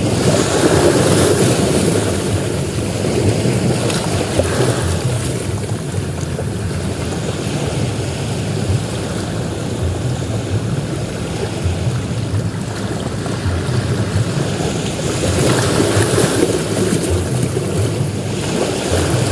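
Ocean surf breaking on a beach: a continuous wash of waves that swells louder near the start and again about three quarters of the way through.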